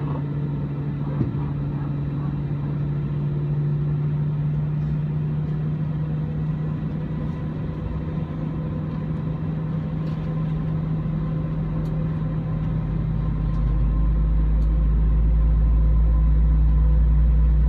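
Airbus A320 engine start heard from the cabin: a steady droning hum, then about two-thirds of the way through a deep rumble rises and grows louder as an engine spools up.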